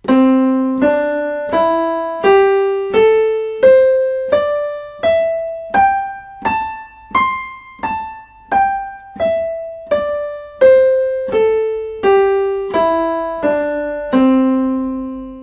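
Digital piano playing the C major pentatonic scale one note at a time, evenly at about 0.7 s per note: two octaves up from middle C, then back down, ending on a held low C that fades out.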